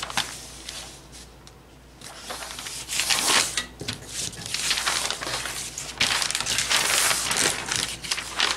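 Large sheet of pattern-drafting paper rustling and crinkling as it is shifted and smoothed on the table, in loud bursts from about three seconds in.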